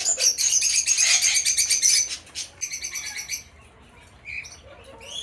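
Pet cockatiels and budgies chirping: a fast run of high chirps for about two seconds, a shorter run just after, then scattered softer calls.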